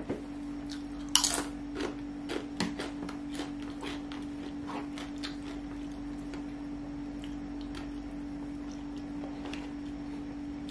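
Close-up chewing of a crunchy chip: a run of crisp crunches, dense in the first few seconds and thinning out after that. A steady low hum runs underneath.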